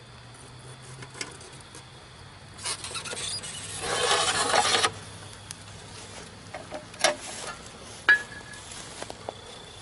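Molten aluminium hissing and crackling as it runs into an anthill's soil, building for about two seconds and then cutting off abruptly. Scattered sharp pops and crackles follow as the metal sits smoking in the mound.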